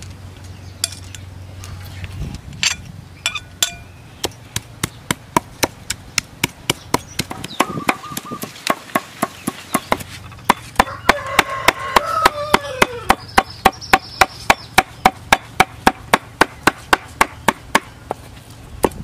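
Cleaver chopping on a round wooden chopping board in a steady rhythm of about three strokes a second, mincing a paste. The chopping starts a few seconds in and gets louder about halfway through.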